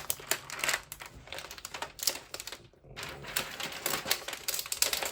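A quick, irregular run of close-up clicks and taps in two spells, like typing on a laptop keyboard.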